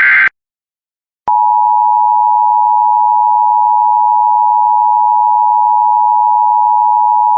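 The tail of a harsh Emergency Alert System data burst ends almost at once. After about a second of silence, a loud, steady single-pitched alert tone begins and holds. It is the attention signal that announces a new warning broadcast, here a severe thunderstorm warning.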